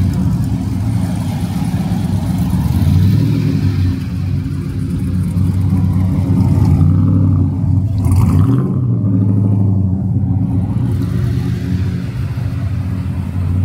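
A car engine running steadily, its pitch shifting briefly about eight seconds in as the revs change.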